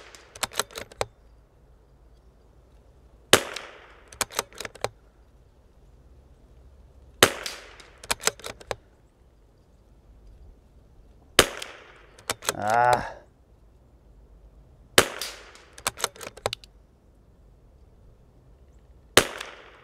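CZ 457 MTR .22 LR bolt-action rifle firing five single shots, roughly four seconds apart, each followed by a quick run of clicks as the bolt is worked for the next round.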